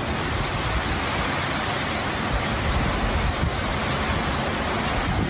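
Steady noise of strong cyclone wind and heavy rain, with low gusts buffeting the microphone.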